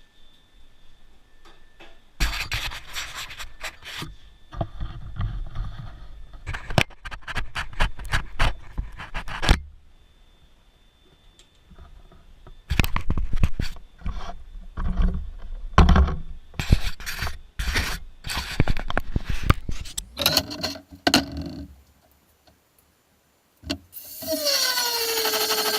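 Irregular scraping, rubbing and knocking of metal stock being handled and worked, in two long spells. Near the end a power tool's motor spins up and settles into a steady high whine.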